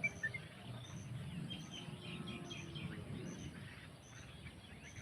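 Several small birds chirping in short, rapid notes over outdoor background noise, with a faint high pulse repeating about twice a second.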